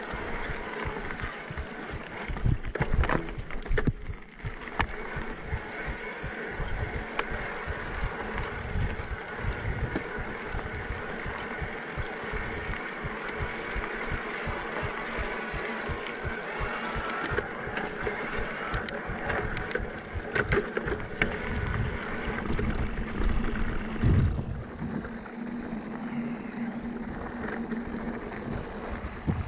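Electric mountain bike ridden over a rough dirt and gravel trail: tyres crunching, with the frame and drivetrain rattling and knocking on every bump over a steady mechanical whine from the e-bike's Bosch mid-drive motor. Near the end the knocking eases as the trail turns smoother.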